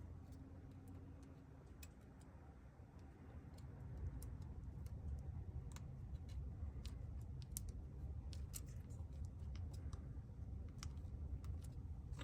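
Faint, scattered small clicks and taps from handling a OnePlus 6T's internal parts while its ribbon cables are fitted and pressed onto their connectors. The clicks come more often from about a third of the way in, over a low steady hum.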